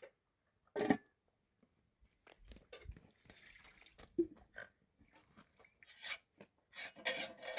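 Someone chewing and crunching food, with scattered small clicks and a sharper knock about a second in.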